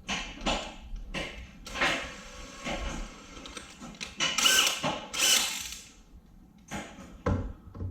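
Tools working on the sheet-metal frame of a car: a string of irregular mechanical clicks, scrapes and short power-tool buzzes. The loudest bursts come about four to five and a half seconds in.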